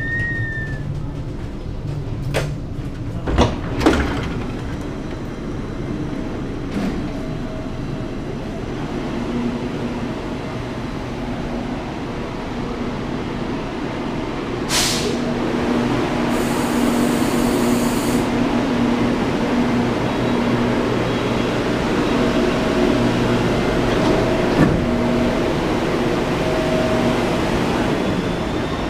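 Helsinki metro train standing at an underground platform, its electrical equipment and ventilation giving a steady rumbling hum. A few sharp knocks come between two and four seconds in, and a brief high hiss of air about halfway through, after which the rumble grows slightly louder.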